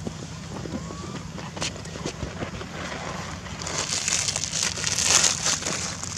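Steady low wind rumble on the microphone; from about four seconds in, a louder crackling rustle sets in.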